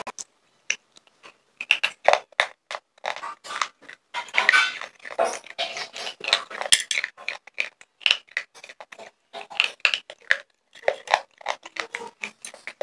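Slate pencils crunched and chewed right at a close microphone: an irregular, rapid run of sharp cracks and clicks that starts about a second and a half in.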